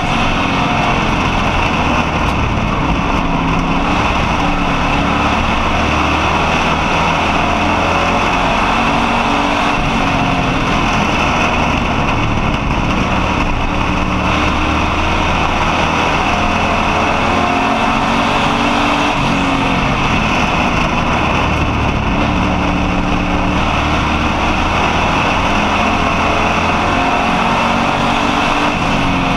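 Street stock race car's engine running hard under racing load, heard from inside the car: a loud, steady drone whose pitch rises and falls every few seconds as it laps the oval.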